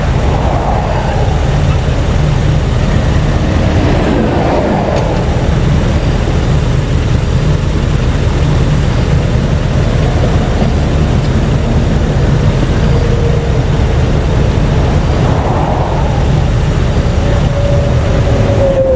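Interstate traffic passing close by: a steady low rumble of tyres and engines, with vehicles swishing past near the start, about four seconds in and again about fifteen seconds in.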